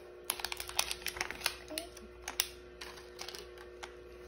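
Plastic toy packaging and Mighty Beanz capsules being handled: a quick run of small plastic clicks and rattles for about two seconds, then a few scattered clicks.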